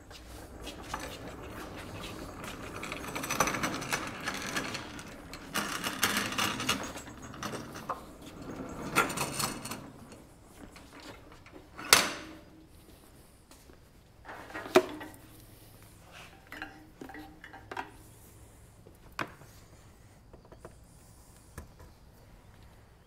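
Workshop handling noise as a wood lathe is moved and set up: scraping and clattering at first, then a single sharp knock about halfway through, followed by scattered lighter knocks and clicks.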